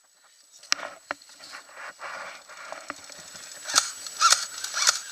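Rustling with scattered sharp clicks, and a few louder sharp cracks near the end, from an airsoft player moving in dry brush while carrying a replica rifle and gear.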